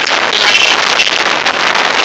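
Hurricane-force wind gusting hard and buffeting the microphone in a loud, steady rush. A higher whistling tone rises in the gust about half a second in.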